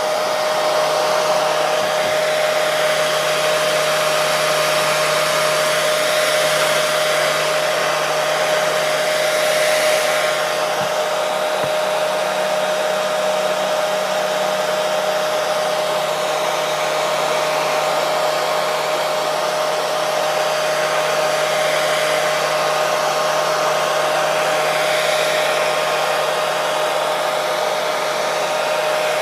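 Hair dryer running steadily: a continuous rush of air with a steady motor whine, unchanging throughout.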